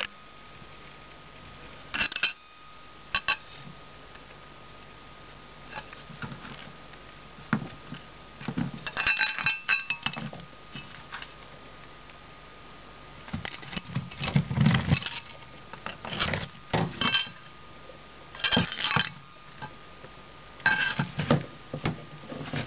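A scallop shell pushed and tossed about by an angora rabbit, clattering and clinking against the cage floor and the food dish in irregular bursts, with quiet gaps between them.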